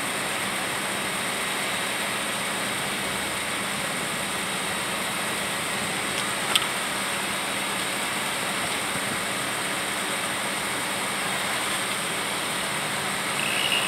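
Steady drone of an idling engine, with one sharp click about six and a half seconds in.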